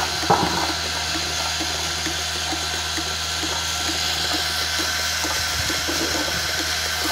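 Bucket milking machine running: steady hum of the vacuum pump with a quick, regular pulsing from the pulsator, and milk spraying into the clear canister.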